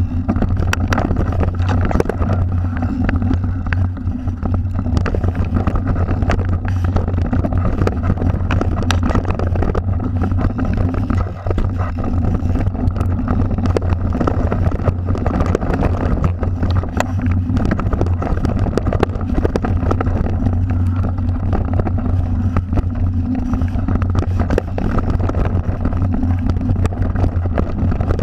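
Mountain bike riding down a dirt singletrack, heard through a camera mounted on the bike: a steady low rush of wind and rolling noise, with constant rattling and sharp clicks as the bike goes over the trail.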